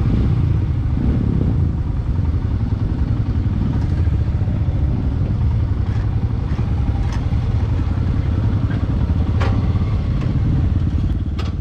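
Motorcycle engine running steadily at low speed as the bike rolls along slowly, a continuous low rumble.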